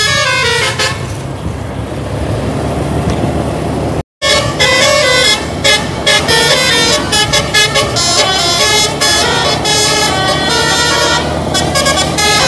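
Telolet basuri bus horn, an electric multi-tone horn, playing a quick stepping melody of sharp reedy notes. It eases off for a few seconds, leaving duller bus engine noise, then cuts out completely for a moment about four seconds in. After that the melody starts again and keeps playing.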